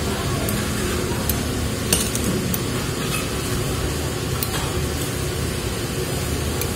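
Eating noises: scattered light clicks of wooden chopsticks against the bowl and crunching bites of crisp fried wonton, over a steady background hum.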